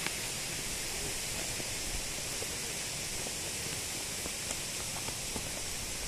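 Steady roar of rushing water from a waterfall, an even unbroken rush at a constant level.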